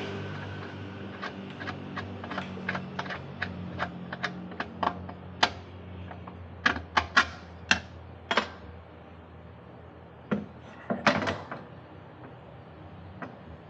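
Work on metal: a run of sharp clicks, two or three a second, then louder, irregular knocks and clusters of knocks, over a low steady hum that fades.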